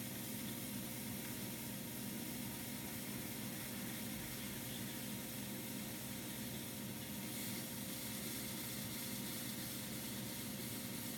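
A trimming blade shaving a porcelain cup as it turns on a potter's wheel: a steady scraping hiss over a steady motor hum, the early rough stage of trimming an eggshell-thin cup.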